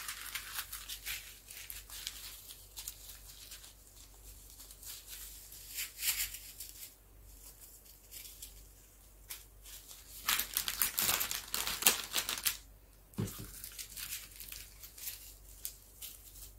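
Small plastic zip bags of diamond painting drills crinkling as they are picked out of a pile by hand, in uneven spurts, louder and denser about ten to twelve seconds in, with a short light knock just after.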